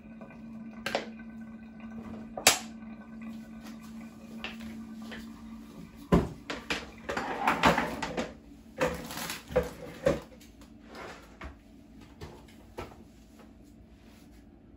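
Kitchen handling noises: a bowl, utensils and a pot knocked, picked up and set down on the worktop and hob, a scatter of clicks and clatters that is busiest between about six and ten seconds in. A low steady hum underneath stops about six seconds in.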